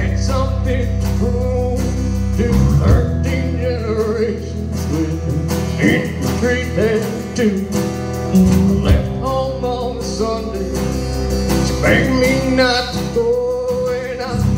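Live band playing a song on acoustic and electric guitars and drums, with a man singing lead over it. The drums come in harder about two and a half seconds in.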